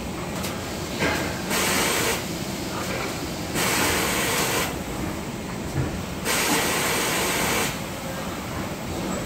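Factory floor ambience, a steady machine hum, cut by three hissing bursts of compressed air, each about a second long and coming every two to three seconds.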